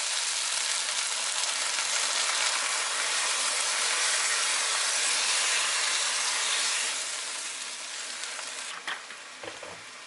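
Rice cakes, onions and sausage sizzling in a nonstick frying pan as heavy cream is added and stirred in with a silicone spatula. The loud sizzle eases to a quieter hiss about seven seconds in, with a few light knocks near the end.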